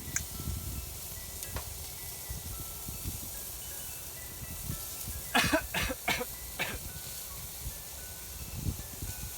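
Soft background music of sparse single notes over a low steady rumble, with four short sharp sounds in quick succession about five and a half to seven seconds in.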